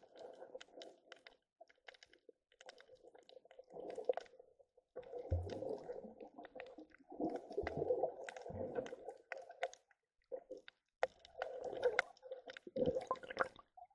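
Underwater sound picked up by a camera below the surface: dull, uneven rumbling and sloshing of water moving around the camera, with a few heavier low thumps and scattered sharp clicks.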